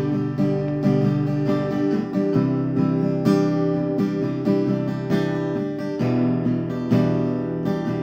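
Background music: acoustic guitar strumming and picking chords at a steady rhythm.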